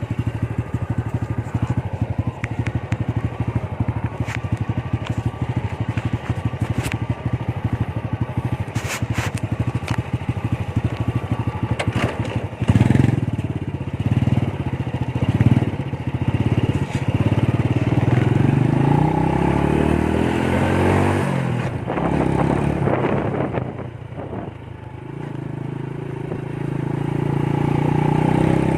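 Honda Wave single-cylinder four-stroke motorcycle with an aftermarket Organ Sport exhaust, idling with a fast, even putter. About halfway through it is revved in a few sharp blips, then pulls away with the pitch rising, drops back, and climbs again near the end. The owner suspects a slight exhaust leak at the pipe's install.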